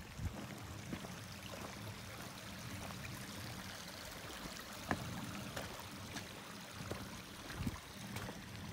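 Steady hiss of running water, like a small stream or trail runoff, with a few scattered soft footfalls on the wet, muddy trail.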